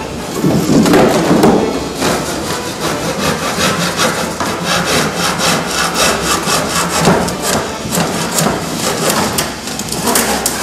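Hand saw cutting through a wooden board in quick, even strokes.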